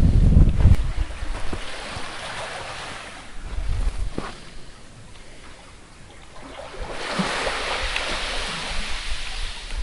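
Sea water surging and washing in a narrow rocky gully, the hiss of the wash swelling again about two-thirds of the way through. Wind buffets the microphone with a low rumble at the start and then drops away.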